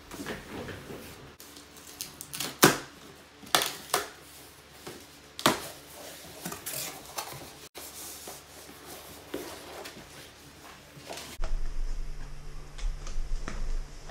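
A small cardboard shipping box being opened and handled by hand: scraping, tearing and rustling of cardboard broken by irregular sharp knocks and clacks, the loudest about three seconds in. A steady low hum comes in near the end, under further handling of the box.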